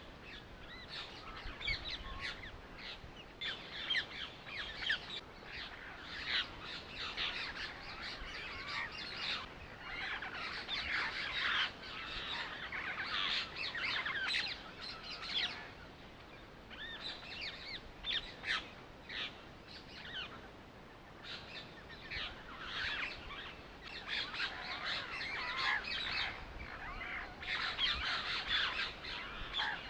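Many small birds chirping and twittering in a dense, continuous chorus, with short lulls about halfway through and again around two-thirds of the way in.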